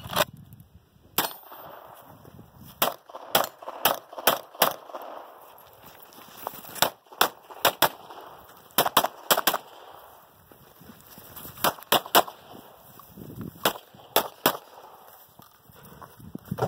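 Pistol shots, about a dozen and a half, fired in quick pairs and short strings with pauses of a second or two between groups. The first shot comes about a second in.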